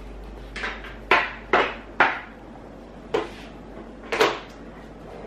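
Knocks and clatters in a kitchen, six in all, three of them in quick succession between about one and two seconds in.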